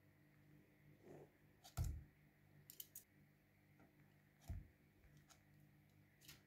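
Metal kitchen tongs clicking as baked meatballs are lifted from a baking tray and set into a pot of tomato sauce, with two soft thuds as meatballs land, a little under two seconds in and again about halfway through.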